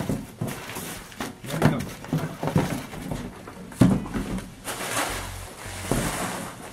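Packaging being handled: plastic bags and a cardboard box rustle and crinkle in quick, irregular bursts, with a few light knocks.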